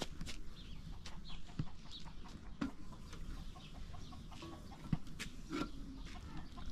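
Chickens clucking and chirping now and then, among scattered light ticks and knocks.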